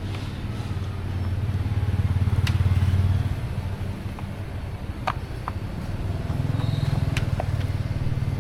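A motor running with a low hum that swells louder twice, with a few light clicks on top.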